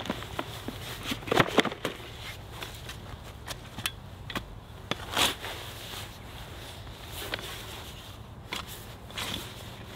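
Metal spade digging in garden soil: irregular crunches and scrapes as the blade is driven in and soil is lifted, loudest about a second and a half in.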